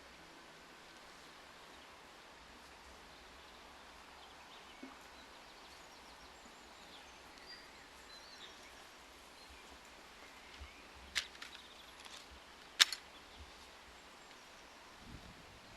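Faint outdoor background with a few thin bird chirps, then two sharp clicks or knocks about eleven and thirteen seconds in, the second much the louder.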